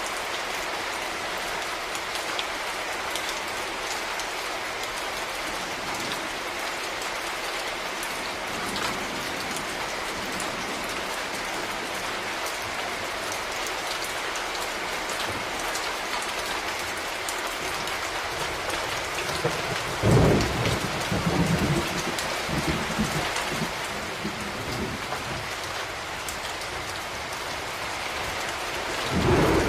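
Steady rain falling in a thunderstorm, an even hiss of drops. About two-thirds of the way through, thunder breaks in and rolls for a few seconds; another thunder roll starts right at the end.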